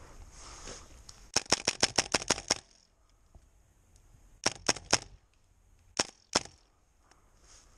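Airsoft rifle firing: a rapid burst of about eight sharp shots, then three quick shots a couple of seconds later, then two more.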